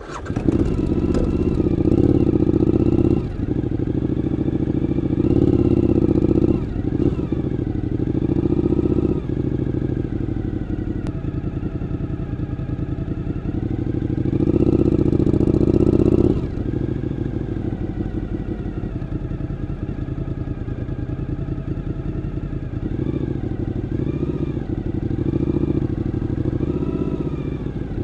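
Suzuki V-Strom 1000's 90-degree V-twin running through an LCI twin-end carbon exhaust. It catches right at the start and then idles, with the revs raised three times, just after the start, about five seconds in and about fifteen seconds in, each time louder for a couple of seconds.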